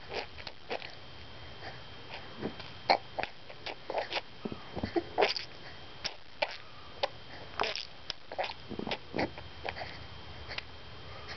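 A 5-month-old baby making short spitting noises with his mouth, in many quick irregular pops through the whole stretch.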